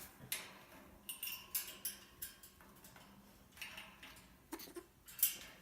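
Grey parrot making a series of short, breathy hissing noises, part of its mock tiger growling.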